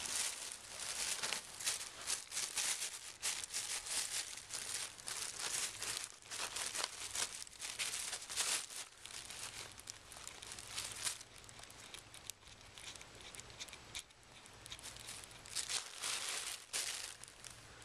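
Thin plastic shopping bags crinkling and rustling in quick, irregular flurries as a kitten paws, bites and burrows into them. The crinkling is busiest for the first ten seconds or so, eases off, then comes again in a flurry near the end.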